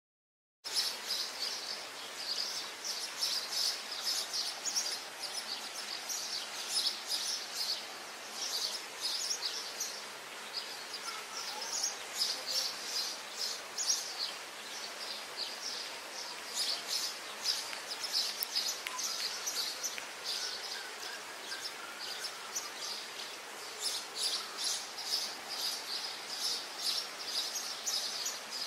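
Outdoor ambience of many small birds chirping in a dense, continuous chatter of quick high chirps, starting abruptly about a second in.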